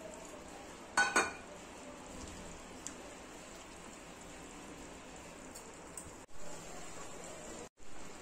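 Drumstick sambar simmering in a pan, a faint steady bubbling hiss, with two sharp clinks about a second in.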